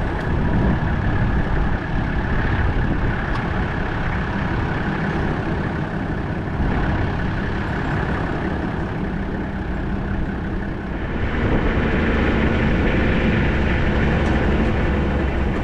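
Toyota Land Cruiser Troopy driving, with steady engine and road rumble that grows louder and rougher about eleven seconds in.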